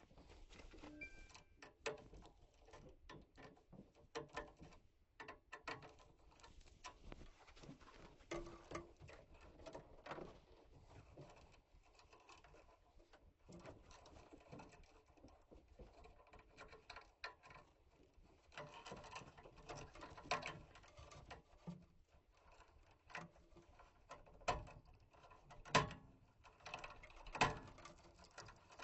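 Scattered light clicks, taps and rattles of hand work with tools and small metal parts, with a couple of louder knocks near the end.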